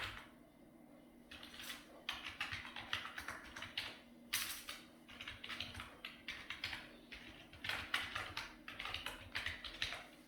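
Computer keyboard typing in quick runs of keystrokes with short pauses, starting about a second in.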